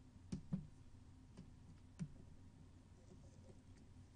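A few faint computer clicks over a low steady hum: two close together just after the start, then single clicks at about one and a half and two seconds.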